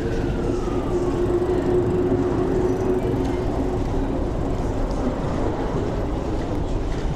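A rail vehicle passing close by: a steady, heavy rumble with a droning hum, and a falling whine that fades out about a second in.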